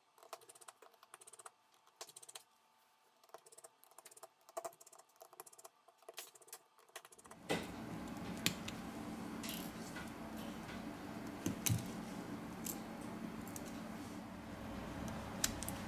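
Small scattered clicks and taps of a Phillips screwdriver and tweezers working tiny screws out of a smartphone's inner frame. About halfway a steady faint hiss comes up, with a few sharper clicks over it.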